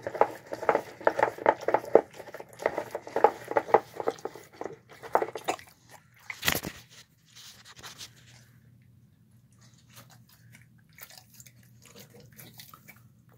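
Pit bull–type dog licking and chewing at its food bowl: quick wet smacking strokes, several a second, for about five seconds. Then a single loud thump, followed by faint, occasional chewing and lip-smacking over a low steady hum.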